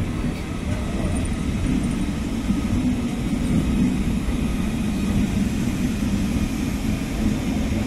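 Indian Railways passenger coaches rolling past at close range: a steady rumble of the wheels on the rails.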